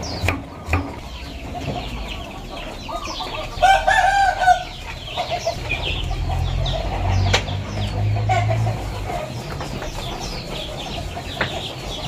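Chickens clucking, with a rooster crowing once about four seconds in, and small birds chirping throughout.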